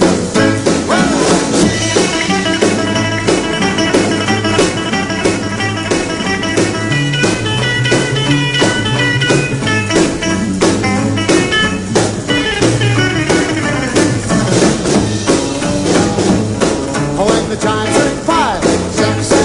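Rock and roll band playing an instrumental break with no singing: a steady drum beat under a lead instrumental solo.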